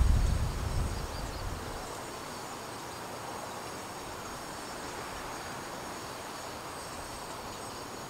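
Steady mechanical background noise, a continuous hiss with a faint high whine, which the recordist takes for some sort of metal work. A low rumble fades out about a second and a half in.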